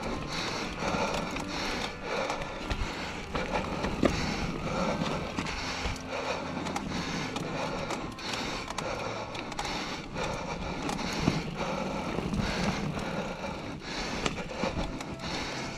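Mountain bike (Norco Range A1) rolling fast down a rocky dirt singletrack: tyres crunching over dirt and stones, with the bike rattling and clattering throughout and a few sharper knocks as it hits rocks.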